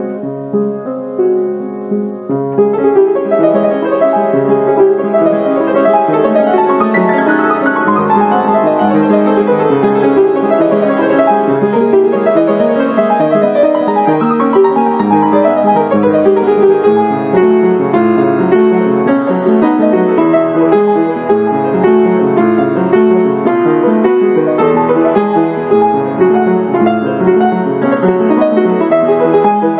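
Background piano music, a continuous flow of notes that grows fuller about two and a half seconds in.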